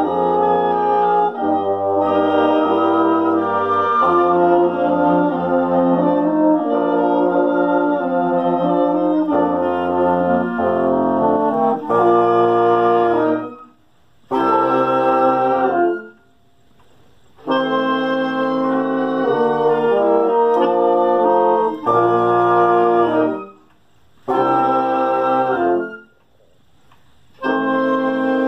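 Wind ensemble of clarinets, bassoons and brass playing a classical piece live. It plays steadily for the first half, then in short phrases broken by brief rests of about a second.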